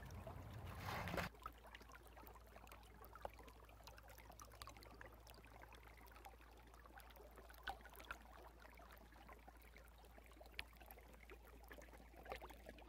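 A rushing outdoor noise cuts off suddenly about a second in, followed by near silence with a faint low hum and scattered faint clicks.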